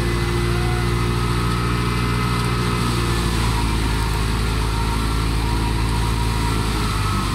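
Wheat thresher running steadily under load while sheaves of wheat are fed into it: a continuous engine drone with machine noise.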